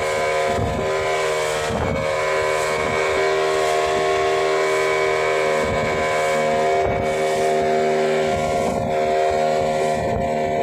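Inboard engine of a wooden fishing boat running steadily at cruising speed, a steady multi-tone drone, over the rush of water along the hull.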